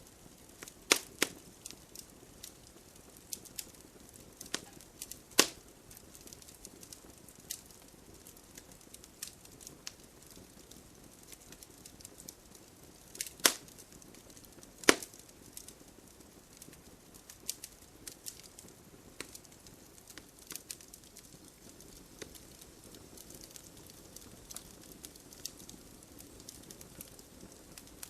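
Wood campfire crackling: a steady scatter of small snaps over a low hiss, with a few louder pops about a second in, around five seconds, and twice near the middle.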